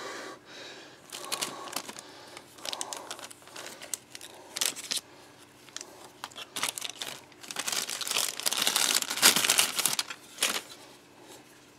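Plastic packaging crinkling and rustling as it is handled, in irregular crackles that grow busiest about eight to ten seconds in.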